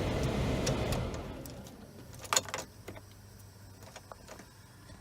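2004 GMC Envoy heater blower fan running with a steady rush of air, working again on a new blower motor resistor. The rush dies away over about a second, and a couple of sharp clicks follow.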